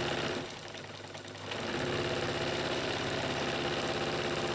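Necchi Supernova Automatica vintage electric sewing machine stitching a zigzag. It dies away briefly about half a second in, then picks up again about a second and a half in and runs fast and steady.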